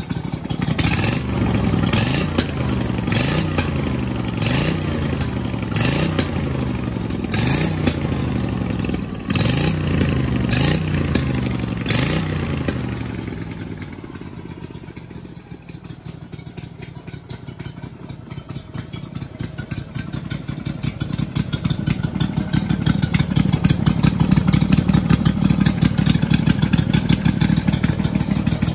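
Honda GX620 air-cooled V-twin engine blipped about nine times in quick succession, the pitch rising and falling with a sharp crack on each rev. It then drops back to a slower idle, and over the last third it is held at a steady, higher speed.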